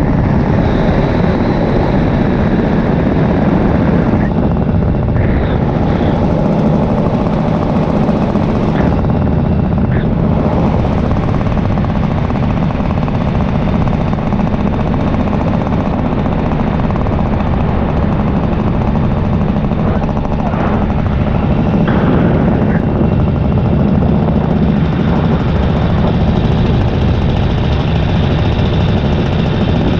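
Two-stroke paramotor engine and propeller running at a steady throttle in flight, a loud continuous drone.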